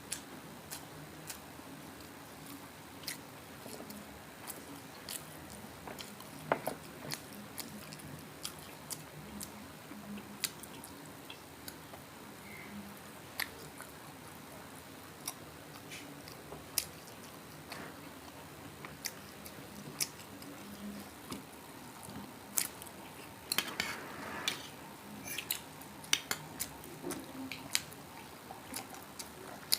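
Close-up eating sounds: chewing and biting into crispy fried pork belly, with many scattered sharp crunches that come thicker near the end.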